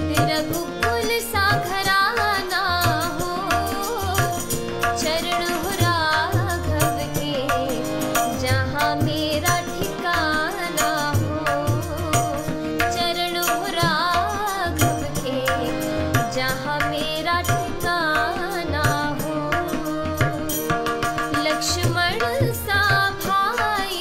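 A woman singing a Hindi devotional Krishna bhajan in a melodic, ornamented line, over a steady percussion accompaniment.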